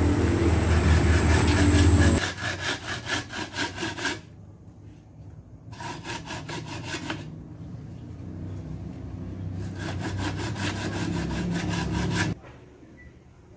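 A hand saw cutting bamboo in three bursts of quick back-and-forth strokes. For about the first two seconds a louder, low, steady motor hum runs under it.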